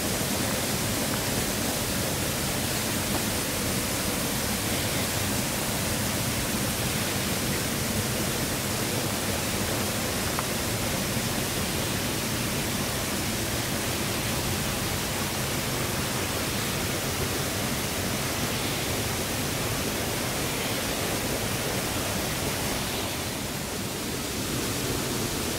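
Steady rush of running water, an even hiss with no distinct events, easing slightly near the end.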